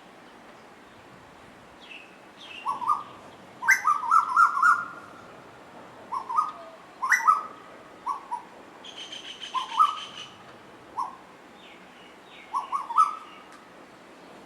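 Asian koels calling: short, sharp notes in clusters of two to five, repeated every second or two, the loudest run about four seconds in. A fast rattling trill comes about nine seconds in.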